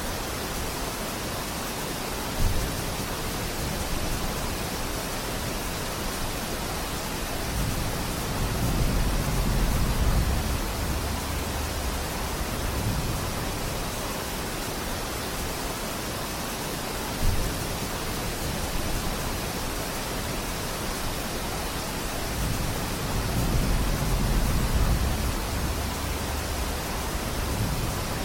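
Steady rain falling on forest foliage, a dense even hiss. A low rumble swells twice, and two sharp knocks stand out, one near the start and one about two-thirds of the way through.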